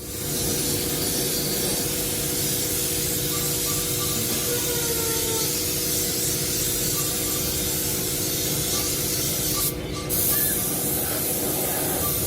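A steady hiss of compressed air from an air tool in a wheel-repair workshop, with a faint mechanical hum underneath.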